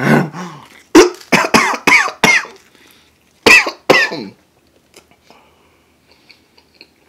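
A man coughing hard in a fit of about eight sharp coughs over the first four seconds, choking after inhaling melted cheese from a bite of pizza. The coughs are followed by faint mouth sounds.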